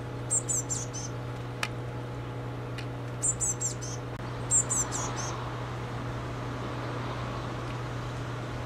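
Blue tit fledgling giving high, thin calls in three short bursts of several notes each, about a second in, at three seconds and at four and a half seconds, over a steady low hum.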